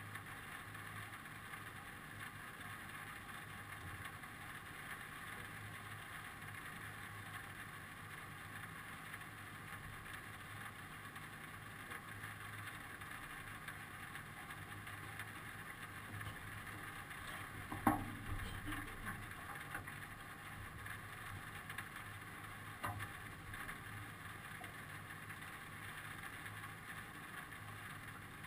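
Steady wind noise outdoors, with the aircraft's engine not running. A sharp knock sounds about two-thirds of the way through, and a fainter one a few seconds later.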